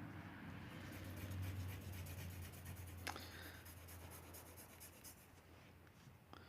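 Faint scratching of a drawing tool on paper in quick, repeated strokes, over a low steady hum. One sharp click comes about three seconds in.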